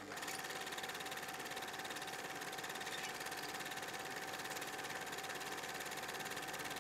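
A steady, even machine-like hum with a faint thin whine, cutting in abruptly with a click.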